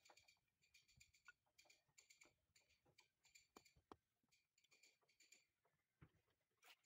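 Near silence with faint scattered clicks and a few light taps; the taps fit a mason's hammer tapping a concrete block down into its mortar bed.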